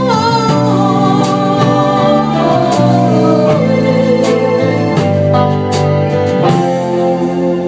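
Live country band playing an instrumental passage of a slow ballad: sustained chords with a lead melody line that slides downward over the first few seconds, cymbal strikes marking the beat, then the band settling onto a held chord near the end.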